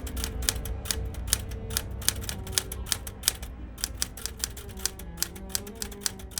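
Typewriter keys clacking in quick, uneven keystrokes, several a second, over background music with held notes.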